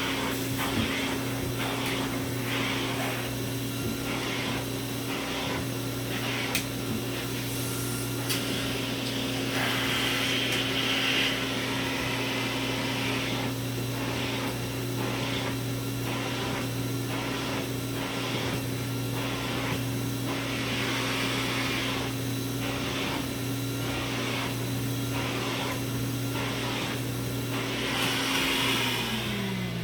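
Hoover Supremacy canister vacuum cleaner with power nozzle running at a steady hum, with rhythmic swishes as the nozzle is worked back and forth. Near the end the motor is switched off and winds down, its pitch falling.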